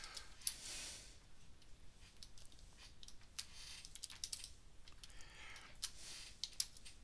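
Faint, scattered computer keyboard keystrokes, some in quick clusters, with a couple of soft hisses between them.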